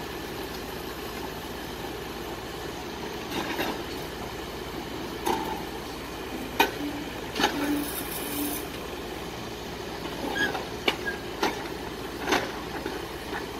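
John Deere 310SL backhoe loader's diesel engine running steadily while its backhoe arm is worked, with several sharp knocks scattered through.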